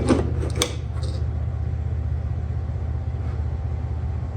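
A steady low hum, with a few light knocks and clicks in the first second as the metal mounting plate is handled against the wall.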